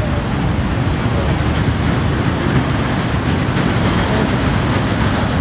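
Freight train of autorack cars rolling past: the steady, continuous noise of steel wheels running on the rails and the cars rattling, with no break or change.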